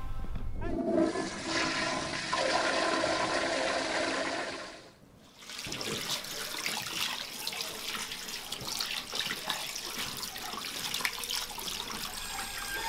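A toilet flushing: a rush of water with gurgling for about four seconds. After a short break, a tap runs into a small washbasin while hands are washed under the stream.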